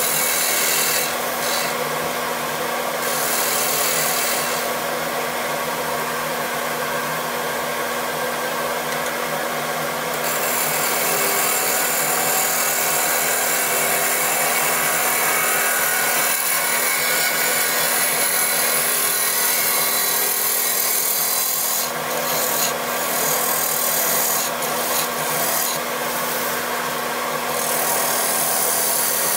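A turning gouge cutting the outside of a spinning Siberian elm bowl on a wood lathe: a continuous hissing scrape as shavings peel off, swelling and easing as the tool moves, over the lathe motor's steady hum.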